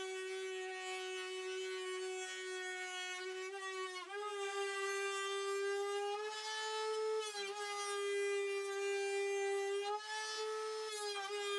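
Trim router with a rabbeting bit cutting a rabbet along the edge of a plywood cabinet, its motor whining steadily with brief dips in pitch a few times.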